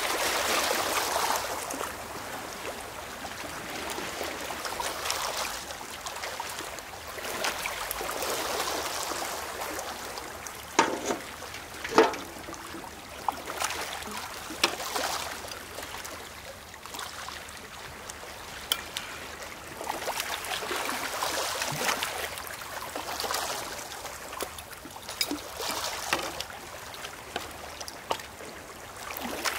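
Seawater gushing and trickling as it is poured from a metal pail through a funnel into glass bottles at the start, over small waves washing in and out on a pebble shore. A few sharp knocks near the middle as the pail is set down on the stones and the funnel is moved between bottles.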